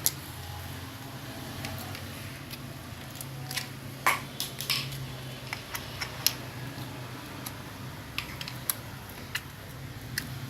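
Hands playing with slime, giving scattered sharp clicks and small pops, loudest about four seconds in, over a steady low hum.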